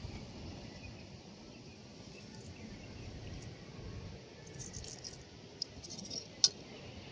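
Low outdoor rumble with a few sharp clicks near the end, the loudest a single click about six and a half seconds in.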